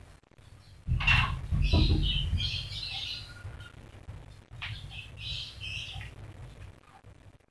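Bird chirping in short clusters of high calls, over low thuds and rustling about a second in.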